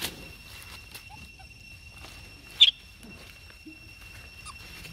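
Leaves and thin branches rustling as a young long-tailed macaque climbs through a bush, with one short, high-pitched squeak about two and a half seconds in, the loudest sound, and a few faint squeaks around it. A steady high-pitched drone runs underneath.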